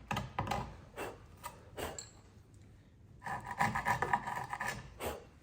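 Hand tool paring and scraping wood to lower the bottom of a housing joint: a run of short strokes about twice a second, then after a brief pause a longer rasping scrape.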